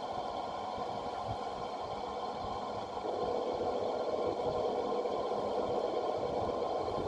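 Large industrial fan, about 90 cm across, running from a UPS inverter: a steady whir with a constant hum of several tones, growing a little louder about three seconds in.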